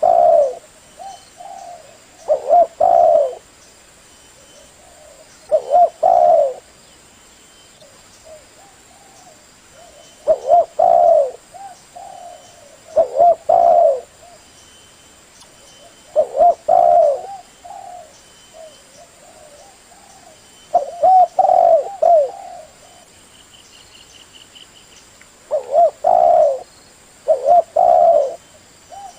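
Male spotted dove (tekukur) cooing: short phrases of a few low, loud coos, repeated every few seconds. Faint chirps from other birds sound between the phrases.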